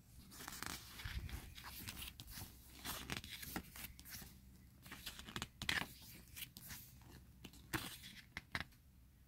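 Glossy pages of a photo book being turned by hand: paper rustling and flipping in irregular short swishes and snaps, the sharpest about halfway through and again near the end.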